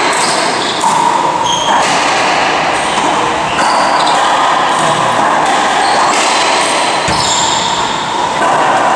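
Racquetball rally: a string of sharp ball hits off racquets and the court walls, roughly one every half second to second, ringing in the enclosed court, with short sneaker squeaks on the hardwood floor between them.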